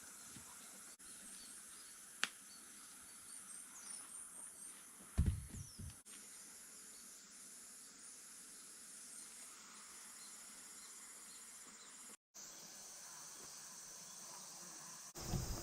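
Faint outdoor ambience with insects chirping high and repeatedly over a steady hiss. A single sharp click comes about two seconds in, and a brief low thump a little after five seconds.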